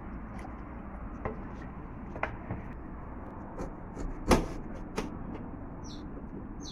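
A kitchen knife cutting a lime on a stainless steel sink drainboard, with a few sharp clicks and knocks of the blade and bowl against the steel, the loudest about four seconds in, over a steady background hiss.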